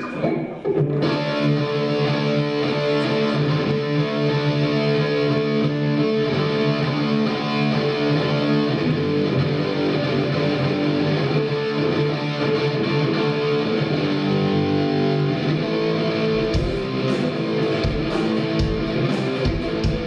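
Band playing live through stage amplifiers: electric guitars playing a sustained, chordy riff, with drum hits coming in near the end.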